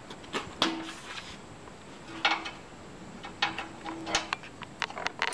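Steel bolts and nuts clinking against each other and against the tiller's sheet-metal bracket as they are handled and fitted by hand: irregular light metallic clicks, some with a brief ring.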